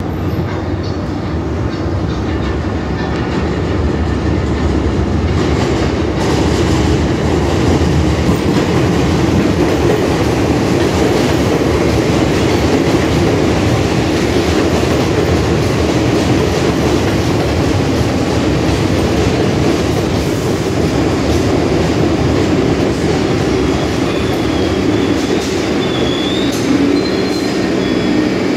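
R62A subway train pulling into an elevated station: a steady rumble and rattle of steel wheels on the rails, building over the first several seconds as it comes in and running on as it slows. Near the end there is a brief high squeal as it brakes to a stop.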